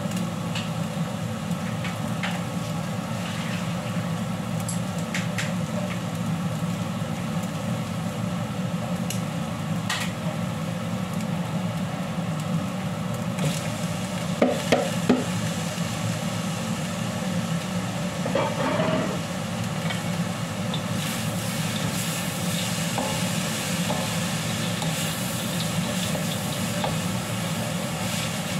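Food sizzling in a wok over a gas burner, under a steady low hum. About halfway through, three sharp knocks come as a container of shredded ingredients is tipped into the pan. Near the end, wooden spatulas toss the food and the sizzling grows brighter.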